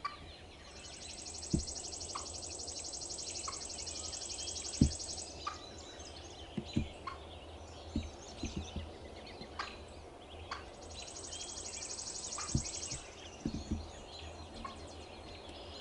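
Young wild hen turkey giving scattered single clucks, among several dull low thumps, the loudest sounds. A fast, high, buzzing trill from another animal runs for about four seconds starting a second in, and again for about two seconds later on.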